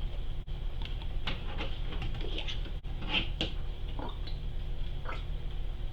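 Scattered light clicks and taps of a plastic glue bottle being opened and handled while glue is poured out for slime, over a steady low hum.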